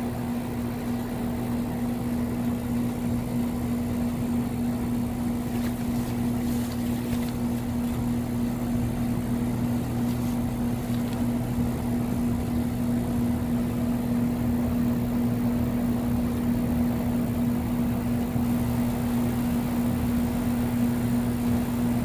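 Outdoor condensing unit running steadily: compressor hum with a strong steady pitch over the rush of the condenser fan. The unit is in cooling mode with a charging jacket over the top restricting outdoor airflow to hold up head pressure in cold weather.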